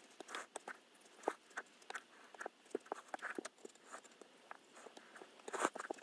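Craft knife blade cutting through a paper stencil sheet on a cutting mat: a string of irregular small ticks and scratchy clicks as short cuts are made, with a louder scrape near the end.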